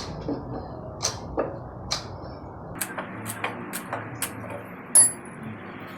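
A hand tool knocking and prying at plywood form boards on a concrete slab: a run of sharp, irregular clicks and taps, with one loud metallic clink about five seconds in.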